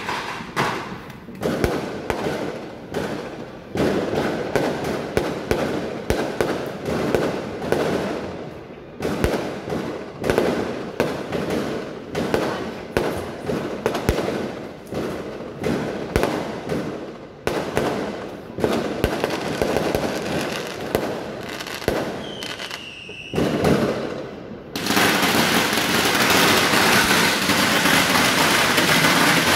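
Fireworks going off in quick, irregular succession: many sharp bangs and cracks. Near the end they merge into one continuous, louder crackle.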